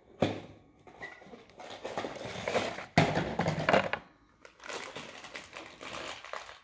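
Crinkling and rustling of a foil blind bag from a Funko mystery mini box as it is handled and opened, in uneven bouts, loudest about three seconds in.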